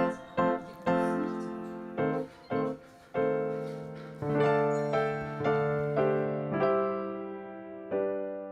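Background music: a slow, gentle piano melody, one note about every second, each note ringing out and fading.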